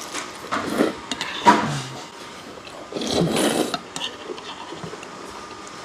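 Close-up eating sounds: a few short bursts of biting and chewing a dumpling, then about three seconds in a longer slurp of noodles from a bowl of cold soybean noodle soup (kong-guksu).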